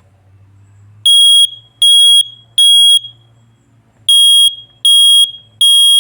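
Smoke alarm sounding uncovered: two rounds of three loud, high-pitched beeps, with a longer pause between the rounds. This three-beep pattern is the smoke alarm's signal, as opposed to the four beeps of a carbon monoxide alarm.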